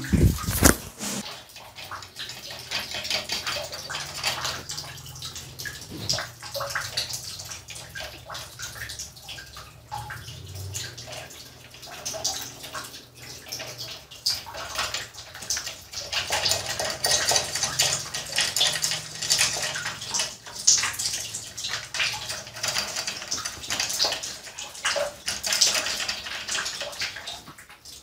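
Water running and splashing steadily, with scattered clicks and light knocks of metal parts handled while the heating-element flange of an electric storage water heater is fitted back in place. A low steady hum sits underneath.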